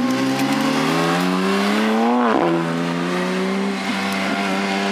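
Aircraft engine running overhead during an airshow display, its pitch rising over the first two seconds and then holding steady.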